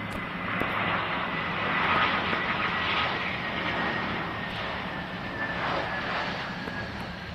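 Jet engines of a British Airways airliner on landing approach passing overhead: a rushing roar with a faint whine that slowly drops in pitch, loudest about two seconds in and then fading away.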